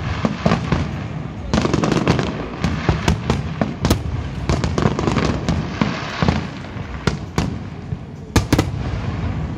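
Aerial firework shells bursting in a display: irregular bangs and crackling over a continuous rumble, with a pair of loud bangs in quick succession near the end.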